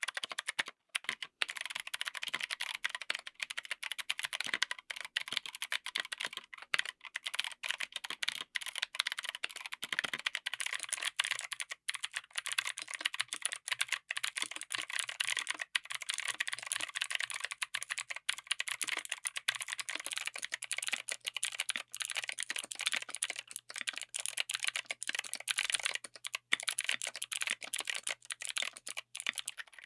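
Continuous typing on a mechanical keyboard fitted with clicky switches: a dense run of sharp, crisp key clicks.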